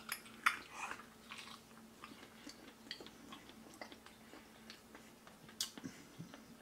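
A person biting into and chewing a smoked baby back rib: faint chewing with small scattered clicks, a sharper one about half a second in and another near the end.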